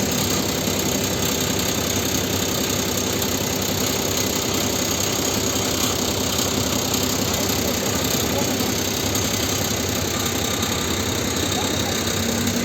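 A vehicle engine idling steadily, a low even hum with no revving or sudden sounds.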